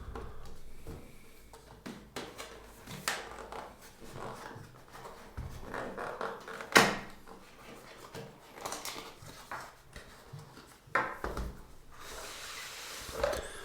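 An e-reader's cardboard retail box being handled and turned over: scattered taps, knocks and rubbing, the sharpest knock about seven seconds in.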